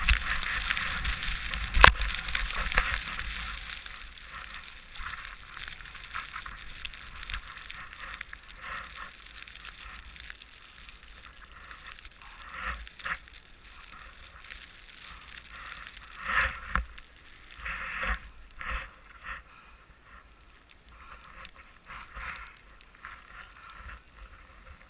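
Snow hissing under a rider sliding through deep powder, with wind on a helmet-mounted microphone; a sharp knock about two seconds in. The hiss fades after the first few seconds and gives way to separate short swishes of turns.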